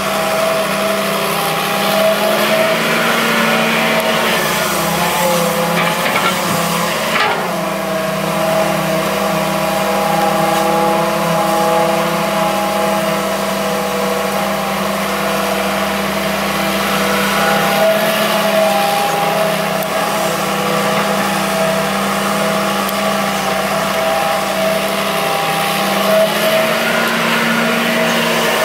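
Hitachi EX200-3 hydraulic excavator's diesel engine running steadily under digging work, its pitch dipping and recovering a few times, with a single sharp knock about seven seconds in.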